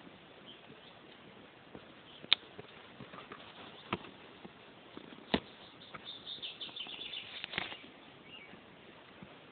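A dog nudging and kicking plastic balls across grass: a few sharp knocks of the balls, then a quick flurry of ticks and patter.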